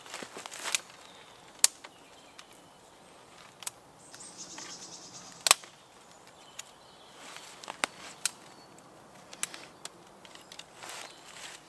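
Thin dead twigs being snapped by hand, a series of sharp dry cracks, the loudest about one and a half and five and a half seconds in, with rustling of dry leaf litter underfoot.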